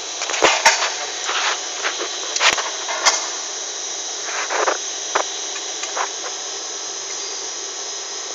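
Steady factory hiss, with a few sharp metallic clicks and knocks in the first three seconds, then softer scrapes and knocks as a square steel tube is handled.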